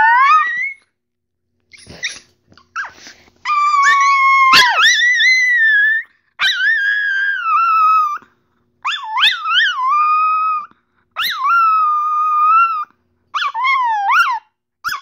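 Small white dog howling, a run of about six long drawn-out howls with wavering, sliding pitch, separated by short breaths.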